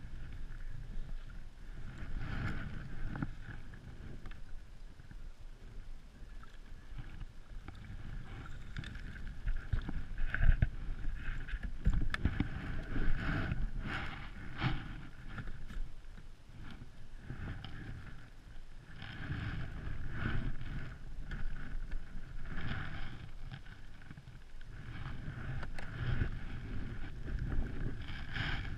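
Handling noises aboard a plastic sit-on-top kayak: irregular rustles, knocks and bumps of hands and gear against the hull and deck, with towel rustling near the end and some wind on the microphone.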